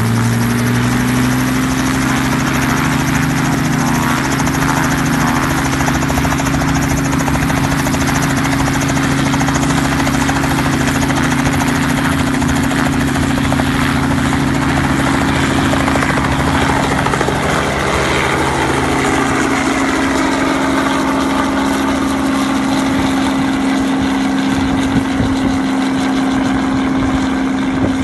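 Small two-bladed Robinson piston helicopter running loudly on the helipad with its rotor turning, then lifting off and flying away. The steady engine and rotor sound shifts about two-thirds of the way through as it climbs out.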